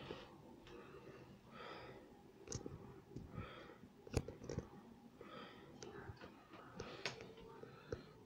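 Quiet breathing close to the microphone, soft swells repeating about once a second, with a few sharp clicks from the phone being handled as it pans.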